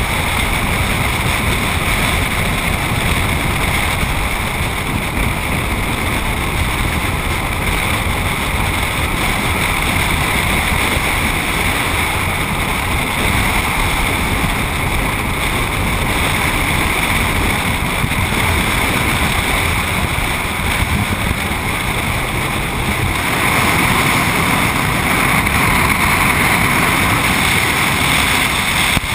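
Wind rushing over a camera microphone mounted on the outside of a moving truck, mixed with tyre and road noise: a steady, loud rush that grows a little louder about three-quarters of the way through.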